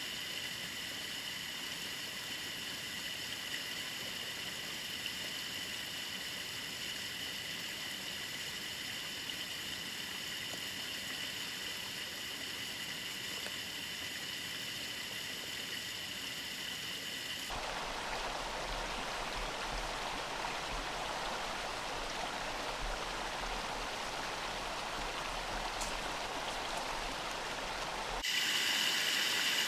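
Small mountain creek waterfall: water flowing and splashing over rocks in a steady rush. The sound changes abruptly about two-thirds of the way through to a fuller, lower rush, and again shortly before the end, as the clips change.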